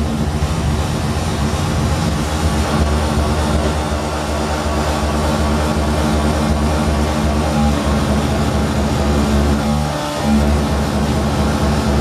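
Loud droning noise music: a steady low rumble with many sustained tones held over it, easing off for a moment about ten seconds in.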